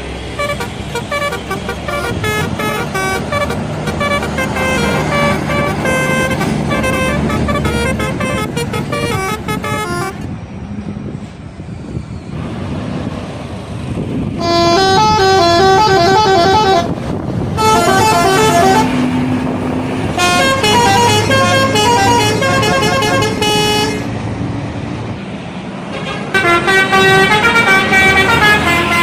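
Telolet horns on Indonesian intercity and tour buses play quick multi-note melodies in several separate runs. Between the runs, bus engines and traffic rumble. The loudest runs come a little past the middle and at the end.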